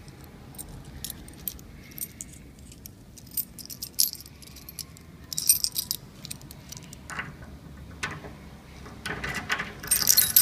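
A bunch of keys jangling in bursts with scattered small clicks and knocks, busiest near the end.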